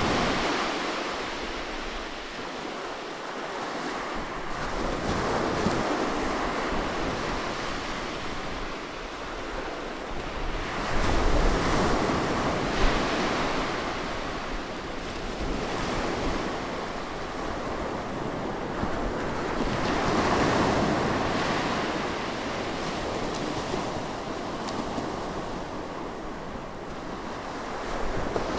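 Sea waves breaking and washing onto the shore, a steady rushing hiss that swells and ebbs every several seconds as each wave comes in.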